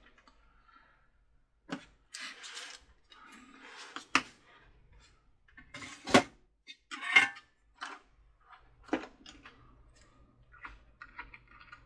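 Small tools and parts being handled on a workbench: irregular sharp clicks and taps with short rustles in between, the loudest clicks about four, six and seven seconds in.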